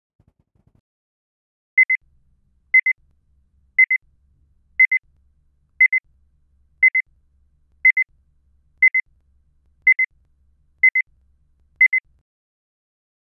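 Electronic alarm-clock-style beeping: eleven quick double beeps at one steady high pitch, one pair each second.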